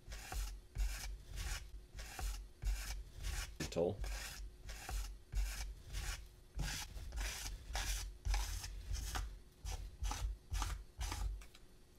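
Metal rib scraping dried underglaze off the surface of a clay vase in quick back-and-forth strokes, about three a second, rasping as it cuts the excess away to expose Mishima inlay lines.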